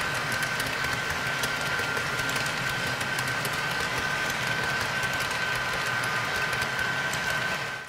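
Long model freight train rolling past on the layout track: a steady rolling rumble with a thin high whine and a fine patter of wheel clicks over the rails. The sound cuts off near the end.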